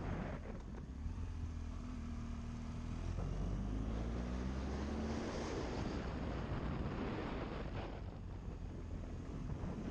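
GS adventure motorcycle's engine running under way, with wind rushing over the microphone. The engine note climbs for a couple of seconds about three seconds in, then eases off.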